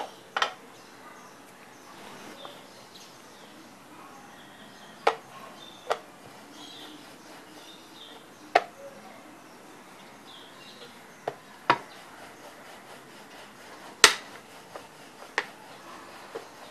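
Wooden rolling pin knocking and clacking against a metal rolling board as bhatura dough is rolled out. The sharp clacks come at irregular intervals, a second to a few seconds apart, with the loudest about fourteen seconds in.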